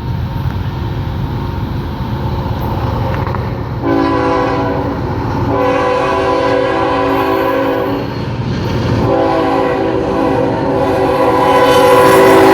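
Freight locomotive's air horn sounding a chord of several tones in two long blasts, the first starting about four seconds in and the second, louder one about nine seconds in, over the steady rumble of the passing locomotives' diesel engines.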